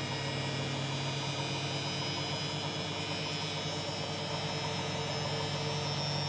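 Candy washing machine in a fast spin: a steady motor and drum hum with a clacking noise that comes with the spin. The owner cannot find its cause and wonders whether it is the drive belt, which has a hump where it sits on the motor.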